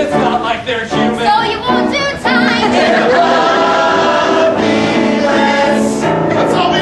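Ensemble of voices singing in harmony, a few short notes at first, then about two seconds in a long held chord.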